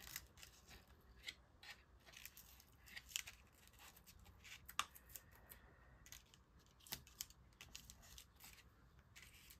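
Faint, scattered ticks and rustles of paper crafting: a card and embroidery floss being handled, pulled tight and taped down, with one sharper tick about five seconds in.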